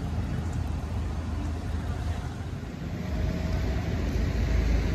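Steady low outdoor rumble of city background noise, swelling about three seconds in.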